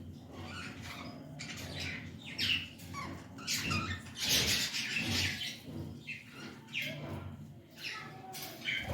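Pet budgerigars chirping and chattering in short, irregular calls.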